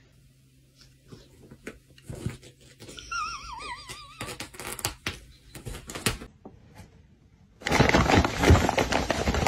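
Scattered light taps and rustles as a cat bats a small toy on a quilted bedspread, with a brief wavering tone about three seconds in. Near the end, loud crinkling rustle of a paper bag.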